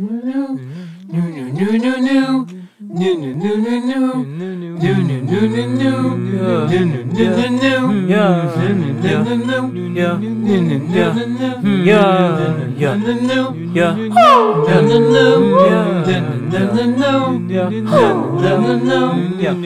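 One person's voice, layered, singing the melodic intro of a hip-hop beat a cappella: a wavering hummed melody, joined about five seconds in by a steady low sung bass note, with falling vocal swoops near the middle and near the end.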